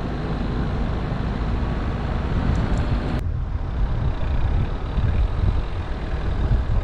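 Wind rushing over the microphone of a moving vehicle, with road and engine rumble that is heaviest and most uneven at the low end. The higher part of the hiss drops abruptly about three seconds in.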